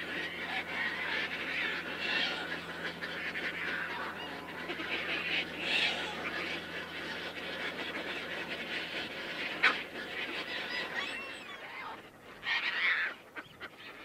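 Caspian tern colony calling: many harsh calls overlapping without a break, with a short lull a couple of seconds before the end and then a fresh burst of calls.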